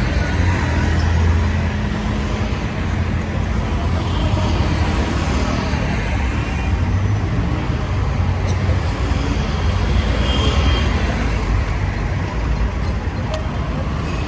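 Busy road traffic: cars and other motor vehicles driving past, a steady rumble of engines and tyres.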